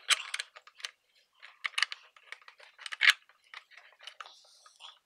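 Small clamp-on bench vise being handled, a block of wood held in its jaws: irregular metal clicks and rattles from the screw handle and jaws, with a sharp click about three seconds in and a short scrape near the end.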